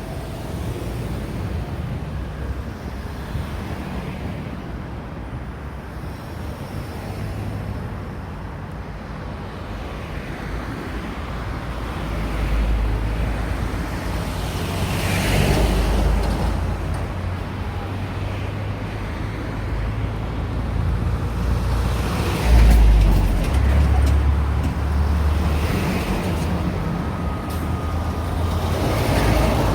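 Road traffic going by: cars and trucks pass one after another over a steady low rumble. The loudest passes come about halfway through and again about three-quarters of the way through.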